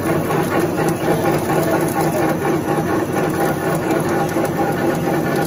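Steady, loud hum of running machinery on a puffed corn snack production line, with no breaks or changes.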